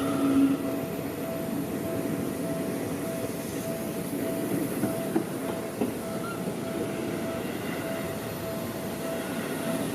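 Train running past on the Seibu Ikebukuro Line, its wheels rumbling and clattering over the rails, while a level-crossing warning bell clangs steadily at about two strikes a second.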